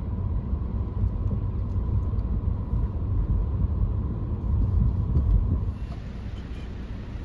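Wind buffeting the microphone: an uneven low rumble, with a light hiss coming in near the end.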